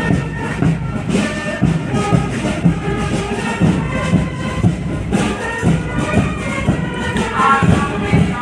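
Music with a steady beat and a melody line over it.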